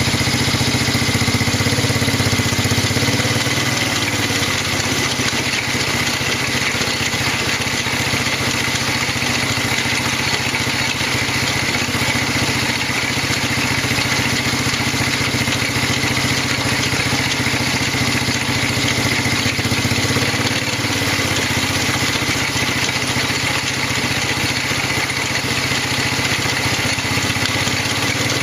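LIFAN 110cc single-cylinder four-stroke engine running steadily in second gear, with a steady high whine over the engine note. This is the abnormal noise that shows up only in second gear, which the owner suspects is a blown transmission.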